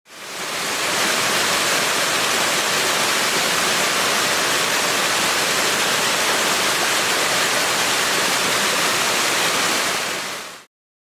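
Waterfall water rushing, a steady, even noise. It fades up over about a second at the start and cuts off shortly before the end.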